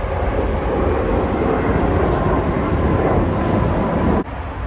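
Jet airliner's engines at takeoff power as it climbs away after departure: a steady loud rumble with a faint whine, mixed with traffic noise from a nearby highway. The sound cuts off abruptly about four seconds in.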